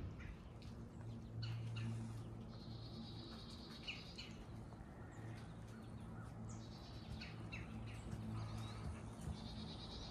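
Faint woodland songbirds: scattered short high chirps and a high, rapid trill heard twice, about two and a half seconds in and again near the end, over a steady low hum.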